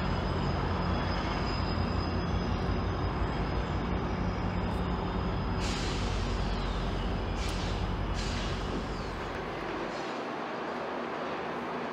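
GO Transit diesel locomotive engine running with a steady low rumble. A burst of air hissing starts suddenly about six seconds in and two shorter hisses follow, like a train's air brakes releasing. The rumble drops away about ten seconds in.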